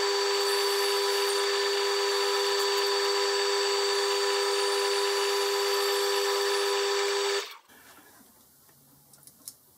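Small metal lathe running with a steady high whine from its motor and gearing, a small boring tool cutting the bore of a nylon bush held in the four-jaw chuck. The whine cuts off abruptly about seven and a half seconds in, followed by a few faint clicks.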